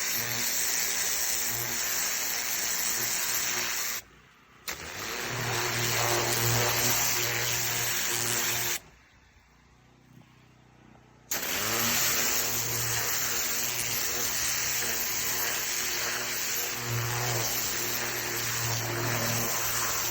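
Pressure washer running: a steady engine hum under the hiss of the high-pressure spray. It cuts out twice, briefly about four seconds in and for a couple of seconds near the middle, and comes back with a short rise in pitch.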